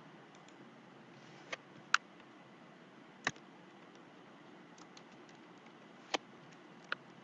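Five scattered clicks of a computer keyboard over a faint steady hiss.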